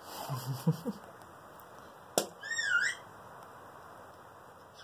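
A white cockatoo eating sweet potato makes a sharp click with its beak about two seconds in, then gives a short squeaky call that rises and falls. A few low grumbling sounds come near the start.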